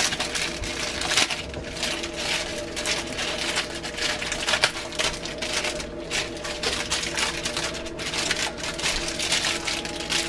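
Plastic wrapper of a rolled Pillsbury refrigerated pie crust crinkling as it is handled and pulled off the dough, an irregular run of crackles and rustles.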